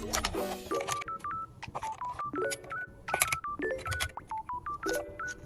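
Background music: a repeating tune of short, beeping electronic notes stepping between two pitches over a light clicking beat.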